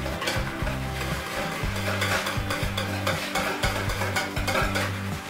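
Wire whisk beating a thin liquid in a stainless steel bowl, quick repeated scraping and splashing strokes against the metal: yeast and sugar being dissolved in warm milk or water.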